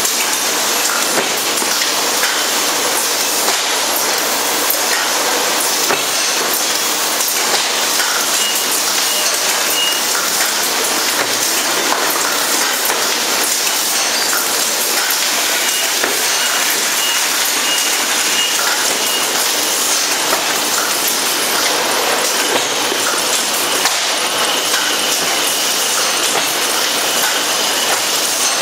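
Beverage filling production line machinery running: a steady mechanical clatter with many small clicks throughout, and a faint high tone that comes and goes a few times.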